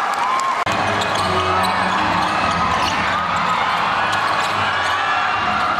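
Basketball game play: many short, high sneaker squeaks on the court, with the ball bouncing.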